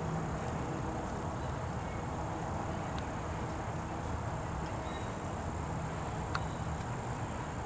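Outdoor ambience dominated by wind rumbling on the microphone, with a faint steady high-pitched tone above it and two small clicks.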